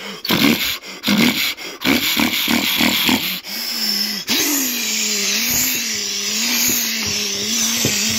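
A man imitating a pulling tractor's diesel engine with his voice. About three seconds of choppy revving sputters, then a long, steady drone with a slight waver, like an engine held under full pull, hummed into a wooden tube held to his mouth.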